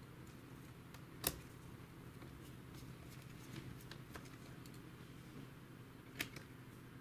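Small ticks and clicks of a screwdriver and tiny screws being driven into the metal display hinges of a Samsung laptop lid, with two sharper clicks, about a second in and near the end, over a low steady hum.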